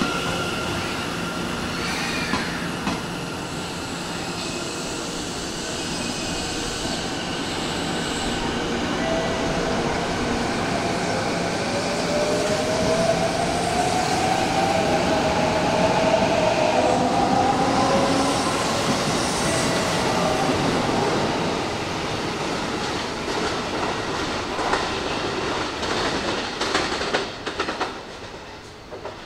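Electric train pulling away from a station platform: its motor whine rises steadily in pitch as it picks up speed, and near the end the wheels clack over the rail joints as the sound fades.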